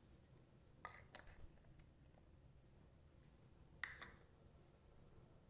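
Near silence, broken by a few faint light clicks about a second in and again near four seconds in: garlic cloves being set down on a stone mortar.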